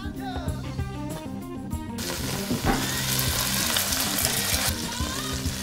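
Background music; about two seconds in, a steady sizzle of chicken frying in hot olive oil in a stainless steel pan joins it.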